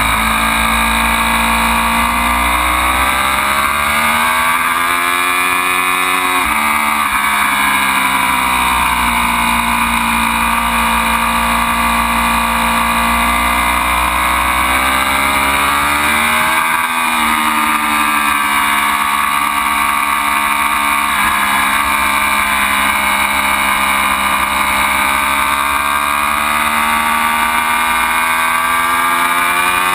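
Ducati Panigale V4 V4 engine pulling hard around a racetrack. The engine note climbs for several seconds and drops sharply as the revs fall about six and a half seconds in and again around seventeen seconds, then rises slowly again near the end.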